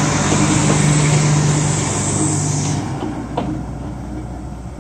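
Steam-styled diesel locomotive of a tourist trolley train pulling away: a steady engine hum with a high hiss that cuts off about two-thirds of the way through, then fading as the train recedes, with a single click about three and a half seconds in.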